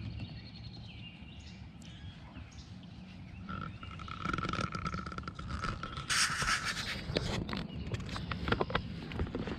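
Steady low rumble of wind on the camera microphone, with scattered rustles and light clicks as a freshly caught fish is handled on the grass. A thin steady tone sounds for about two seconds midway, and a brief loud hiss comes about six seconds in.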